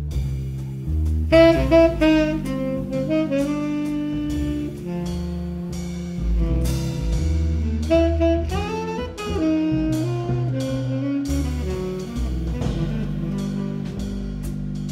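Background jazz music: a saxophone playing a melody over a bass line and drums.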